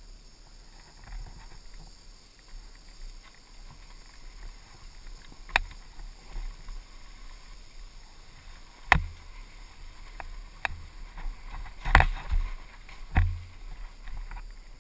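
KTM dirt bike coasting down a dirt trail with no engine sound: tyres rumbling over the ground and the bike rattling, with four sharp knocks in the second half, the loudest near the end.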